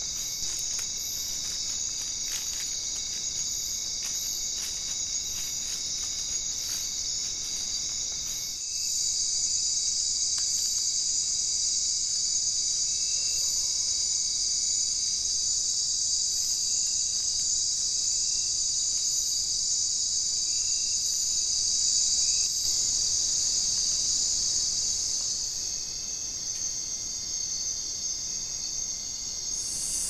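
Steady high-pitched buzzing chorus of night insects in tropical rainforest. It gets louder about a third of the way in and eases back near the end.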